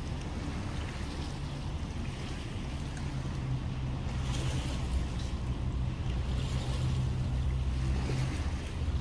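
Outboard motor running at idle: a steady low hum that grows louder about three and a half seconds in, with wind on the microphone.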